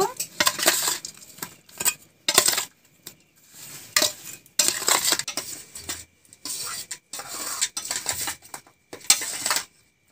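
Long metal spoon scraping and clinking against a steel plate in irregular strokes, mixing raw fish pieces with turmeric, chilli powder and salt.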